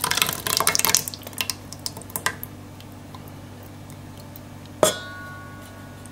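Thick tomato sauce glugging and splattering out of a tin can into a metal pressure-cooker pot for about the first second, then a few last drips. Near the end, one sharp metallic clink with a brief ring as the can knocks against the pot.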